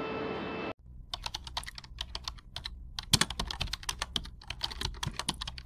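Keyboard typing sound effect: a fast, irregular run of key clicks. It starts abruptly about a second in, after a short stretch of room tone.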